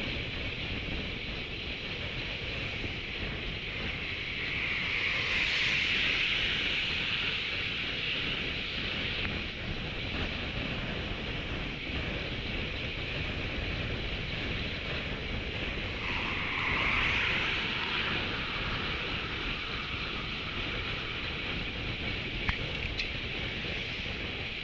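Wind rushing over the microphone of a road bike's handlebar camera as it rides at about 36 to 39 km/h, a steady noise that swells twice, about a quarter and two-thirds of the way through.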